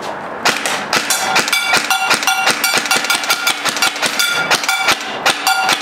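Helios Umbrella Corporation M4 SBR airsoft electric gun firing semi-automatic in quick succession, about four or five shots a second, each a sharp click with a short ringing tone.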